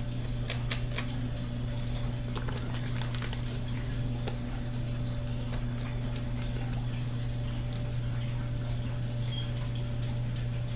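A steady low hum with a faint watery trickle runs throughout, with scattered light clicks and taps from a plastic squeeze bottle of lemon juice being shaken and handled.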